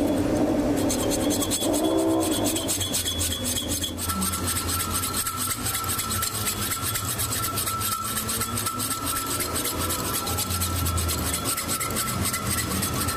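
Steel being worked with a cutting or shaping tool: a steady rasping scrape, joined about four seconds in by a steady high whine.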